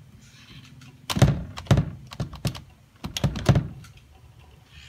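Keys typed on a compact USB keyboard to enter a login. The keystrokes are heavy and clacking, in two short bursts: a few about a second in, and a few more about three seconds in.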